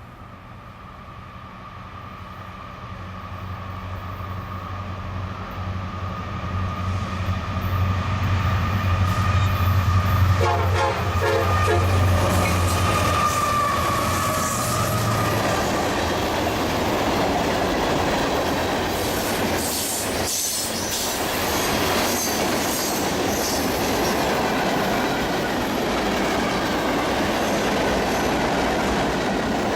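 A CSX mixed freight train approaches behind several diesel locomotives running together. The engines grow louder as they near, and the horn sounds at about ten seconds in. The freight cars then roll steadily past, their wheels clacking and squealing.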